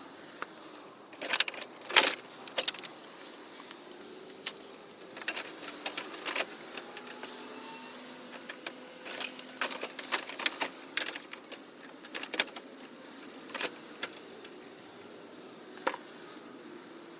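Scattered sharp clicks, knocks and light rattles of a van's plastic front bumper being lifted and pushed into place, the loudest knocks about two seconds in.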